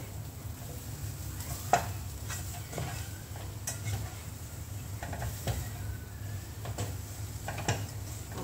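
Wooden spatula stirring chicken pieces and spice paste in a wok, scraping and knocking against the pan at irregular moments, with one sharper knock about two seconds in, while the chicken sizzles over a steady low hum.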